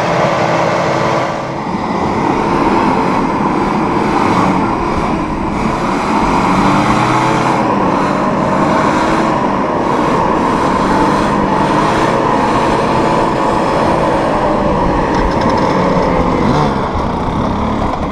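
Off-road engines running loud and steady, the revs rising and falling as a small 4x4 SUV climbs a loose dirt slope, with dirt-bike engines running close by.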